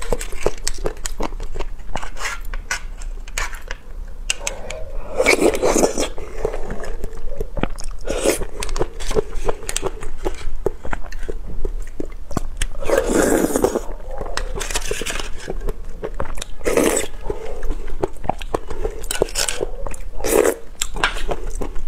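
Close-up eating sounds of soft double-skin milk pudding taken off a metal spoon: many small wet mouth clicks and about five louder bursts, with the spoon scraping a foil cup.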